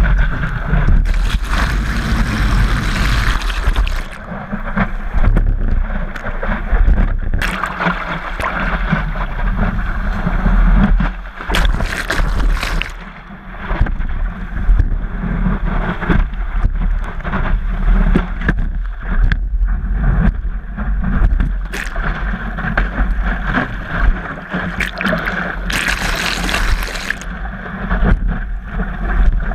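Wind buffeting the microphone over a steady rush of water along a stand-up paddleboard's hull as it runs downwind through chop, with louder bursts of splashing spray about a second in, around twelve seconds and around twenty-six seconds.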